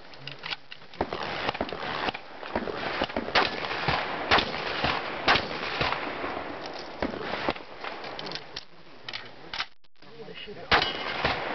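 A series of shotgun shots fired at irregular intervals, the loudest four coming one after another about a second apart near the middle and one more near the end, with smaller bangs in between.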